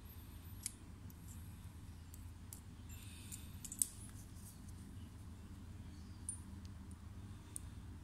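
A handful of small, sharp clicks and taps as a pedal spindle and small metal tools are handled, the loudest a little before the middle, over a faint low hum.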